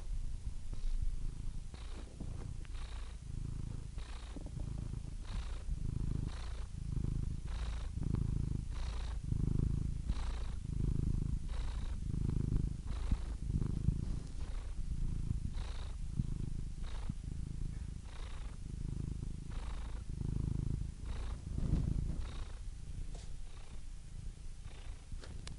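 Domestic cat purring steadily, the purr swelling and easing about once a second with each breath in and out.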